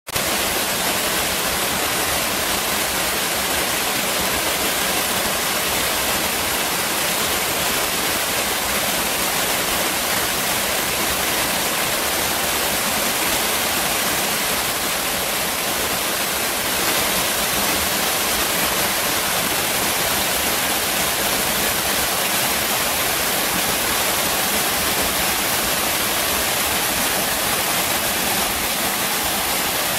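Steady rush of whitewater from a mountain river tumbling over rocks in small cascades into a pool.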